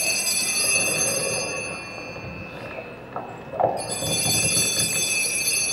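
Altar bells rung at the elevation of the chalice, just after the words of consecration, marking the consecration. They ring steadily, fall away after about a second and a half, and ring again near four seconds in.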